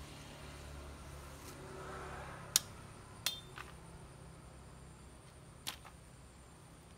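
Cut branches and twigs being handled and dragged through grass, a faint rustling broken by four sharp snaps or knocks, the loudest about two and a half seconds in and the last near the end.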